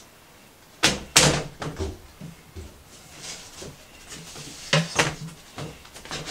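Sharp wooden knocks as a thin drawer-bottom panel is slid into the grooves of a flat-pack wooden drawer and pushed home. There are two loud knocks about a second in and a few smaller ones around five seconds in.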